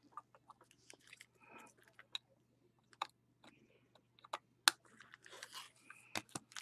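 Faint, scattered small clicks and ticks with a few short rustles, from cards and packaging being handled on a tabletop; the sharpest ticks come about three and four and a half seconds in.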